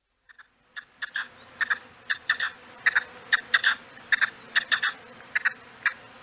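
Game bird giving short, sharp, clicky calls in quick irregular clusters, starting just under a second in, over a faint steady background.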